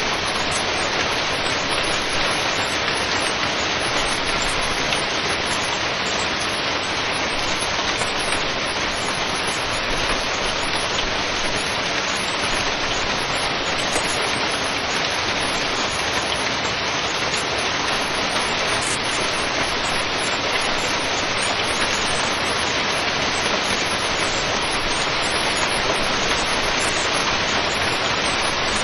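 Heavy hailstorm: a dense, steady patter of hailstones striking surfaces, with no let-up.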